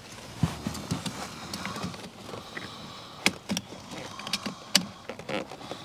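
Scattered clicks, taps and light rattling of plastic car interior trim parts being handled and fitted, with sharp clicks about half a second, three seconds and nearly five seconds in.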